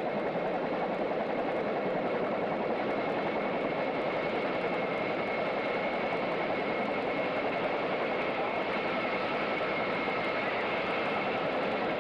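UH-1 Huey helicopter in flight: a steady drone of engine and rotor with a thin high whine held throughout.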